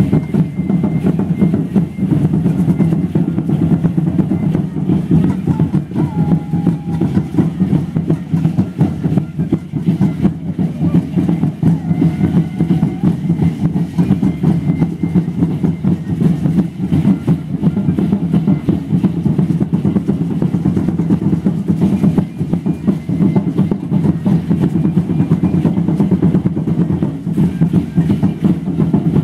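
Aztec ceremonial dance drumming: large drums beaten in a steady, dense, unbroken pattern.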